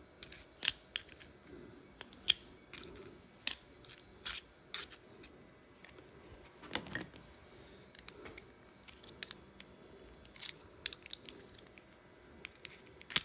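Irregular sharp clicks and small scrapes of a screwdriver prying at steel clips and springs in a carving knife's plastic drive housing.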